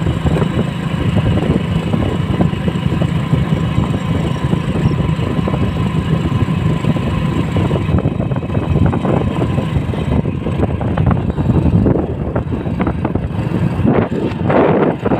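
Motorcycle engine running steadily while the bike is ridden along a road, heard from the rider's seat.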